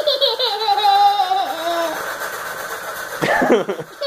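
Front-loading washing machine on a high-speed spin with its motor whining in a pitch that drifts slowly downward, heard through a laptop's speaker. A short burst of a different sound comes about three seconds in.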